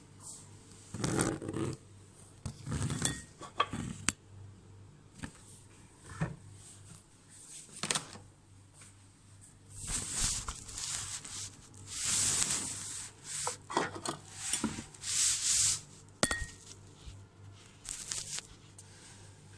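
Irregular kitchen handling noises: rubbing and scraping with a few sharp clicks as pots and utensils are moved about. The longest, loudest scraping comes in the second half.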